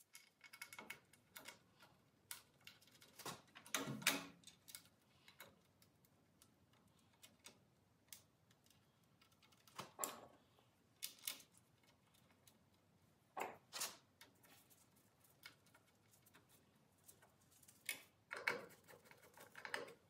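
Faint, scattered clicks and metallic clinks of hand-fitting a door latch and its parts onto a steel door frame, with a few louder clatters spread through.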